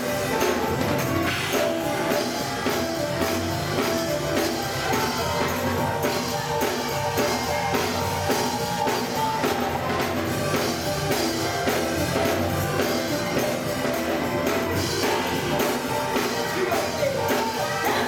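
Live gospel music from a church choir and band: a steady drum beat with held instrumental tones and singing.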